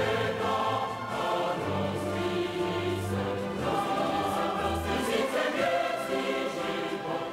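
Choral music: a choir singing over instrumental accompaniment.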